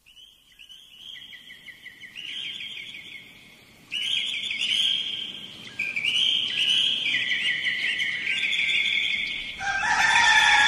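Birds chirping in quick repeated trills, getting louder about four seconds in, with a lower, longer call joining near the end.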